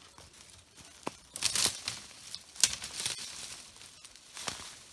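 Slow crunching, rustling footsteps: a handful of irregular steps, the loudest around the middle.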